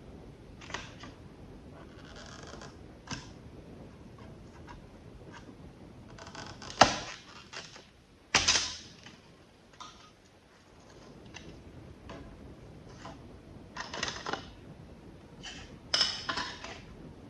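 Irregular clicks and knocks of small tools and lamp parts being handled, with two louder knocks about seven and eight and a half seconds in.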